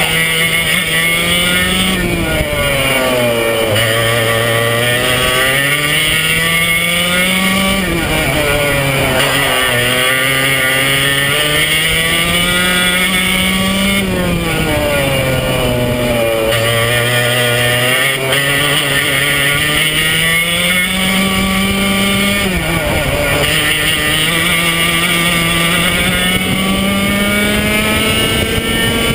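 Swedetech HPV2 two-stroke kart engine at race pace, heard onboard: its pitch climbs steadily along each straight and drops sharply each time the driver lifts for a corner, several times over.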